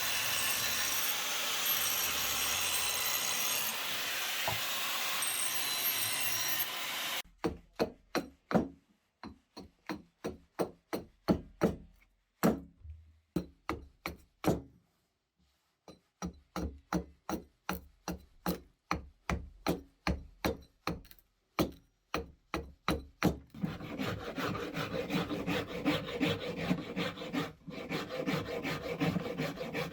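Wood being worked by hand with an abrasive or cutting tool. A dense, steady scraping comes first; about seven seconds in it switches abruptly to separate back-and-forth strokes, two or three a second, with brief pauses. Near the end these give way to faster, continuous rasping.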